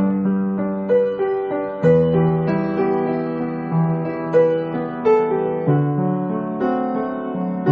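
Background piano music: a slow melody of struck notes over low chords.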